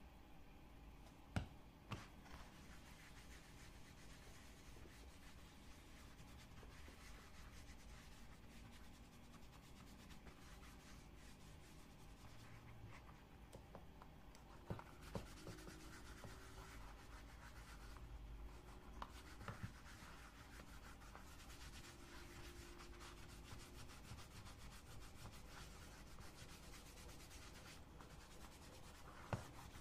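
A small pad rubbing oil into the surface of a pull-up leather wallet by hand: a faint, steady rubbing and scuffing. A few light clicks stand out, near the start, around the middle and near the end.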